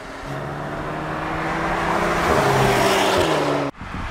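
2024 Audi S3's turbocharged 2.0 TFSI four-cylinder engine and exhaust as the car drives up under steady throttle. The engine note grows louder, then cuts off abruptly near the end, leaving a quieter rush of wind and road noise.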